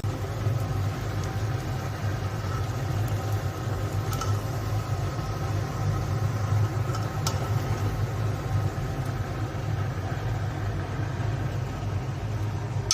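Steady low mechanical hum of a running motor, even throughout, with a couple of faint clicks.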